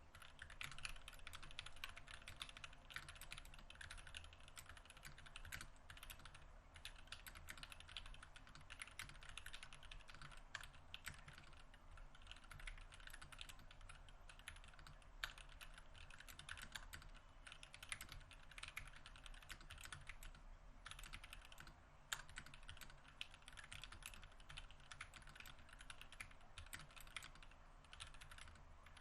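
Continuous fast typing on a mechanical keyboard: an NK65 with NovelKeys Silk Yellow linear switches in a polycarbonate case and plate, with GMK ABS keycaps, a dense run of keystrokes with a few louder strokes standing out.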